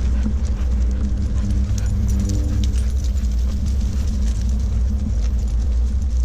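Steady low rumble of a golf cart on the move, with light jingling and clicking over it.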